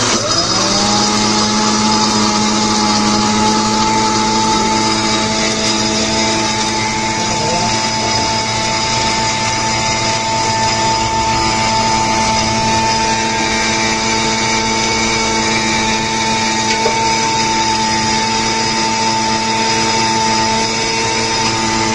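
Electric countertop mixer-grinder blending a drink: the motor spins up quickly with a rising whine as it is switched on, then runs at a steady high pitch.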